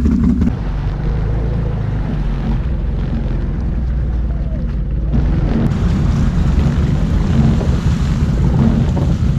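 Can-Am ATV engines running at low revs through mud and water, with wind noise on the microphone.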